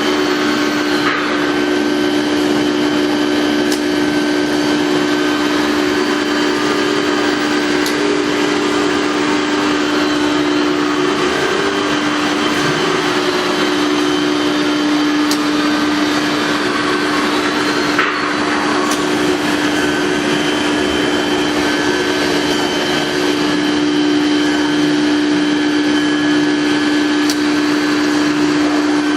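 Fastcut 1325 CNC router running: a steady pitched hum from the spindle over an even rush of machine noise, with a few faint clicks.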